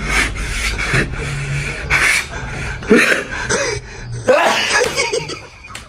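A person's short, breathy gasps and sneeze-like bursts: attempts to hold back sneezes. The loudest bursts come about three seconds in and again just after four seconds.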